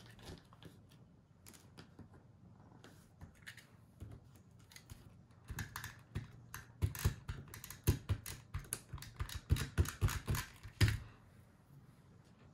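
Handheld tape runner laying adhesive onto the back of a paper die-cut word in short strokes: a run of irregular clicks and crackles starting about halfway through, ending with a louder knock.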